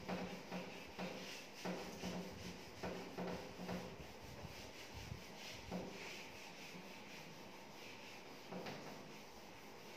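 Handheld whiteboard duster wiping across a whiteboard: faint, irregular rubbing strokes, coming thick and fast at first and thinning out in the second half.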